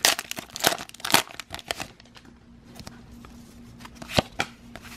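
A foil Pokémon Sword and Shield booster pack wrapper being torn open and crinkled: quick, dense crinkling for about two seconds, then a few faint rustles and one sharp click near the end.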